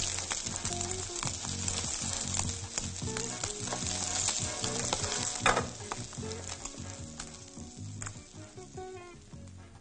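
Food sizzling in a hot frying pan: a dense, crackling hiss that starts suddenly and thins out near the end, with one sharp knock about five and a half seconds in. Soft background music plays underneath.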